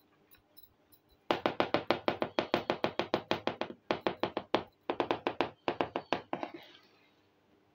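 Rapid tapping on a small hollow clay pot held in the hand, about seven taps a second in several quick runs with short breaks, starting about a second in.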